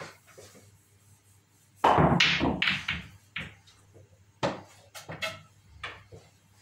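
Pool balls clacking together on a 6 ft pool table: a loud clatter with a heavy knock about two seconds in, then several lighter single clicks as the balls strike each other and the cushions.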